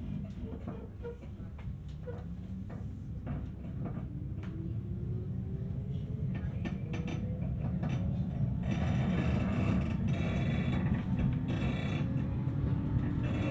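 Cabin of a JR East 719 series AC electric train accelerating: a motor whine climbs slowly in pitch over the rumble of the running gear, with scattered clicks from the track. The noise grows steadily louder and swells from about nine seconds in. This car has the jet-like sound the uploader calls an abnormal-noise "jet car", though he wonders whether it is simply normal for the 719 series.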